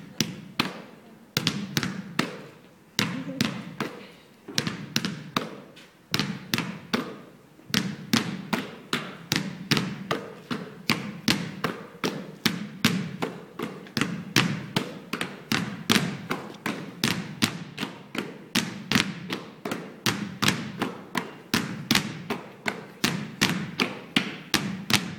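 Basketballs bounced on a stage floor as rhythmic percussion, a run of sharp thuds. The bounces start sparse and uneven, then from about eight seconds in come faster and denser in a steady rhythm as several players bounce their balls together.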